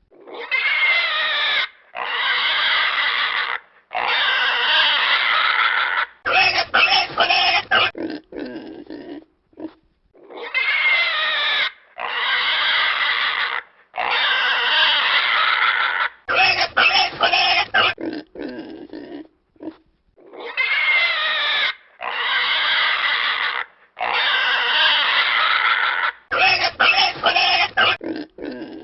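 Pig squealing in long, wavering squeals of a second or two each, followed by a quick run of short grunts. The same squeal-and-grunt sequence repeats about every ten seconds, three times.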